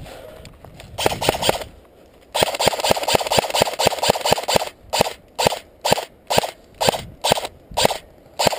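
Airsoft rifle firing close by: a short full-auto burst about a second in, a longer full-auto burst of about two seconds, then about eight single shots roughly half a second apart.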